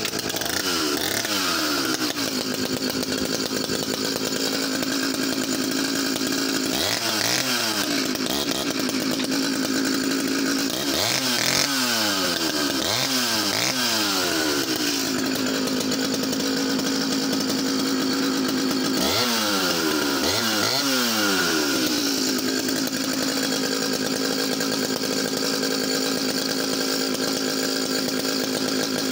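Echo CS-650EVL two-stroke professional chainsaw engine running at a steady idle. The throttle is blipped several times, in groups of two or three, so the revs rise and fall back to idle.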